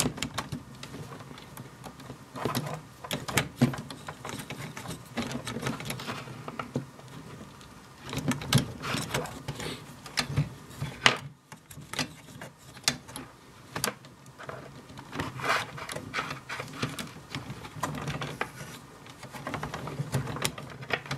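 Irregular small clicks, taps and rustles of fingers fitting a rubber drive belt over the pulleys inside a Sony CDP-CX350 CD changer's opened chassis.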